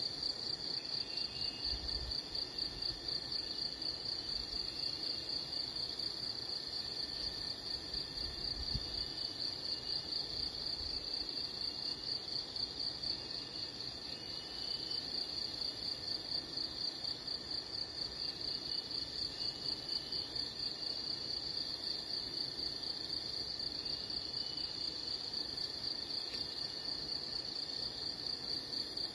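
Insect chorus: a steady, fast-pulsing high trill that never stops, with faint short bird chirps every few seconds.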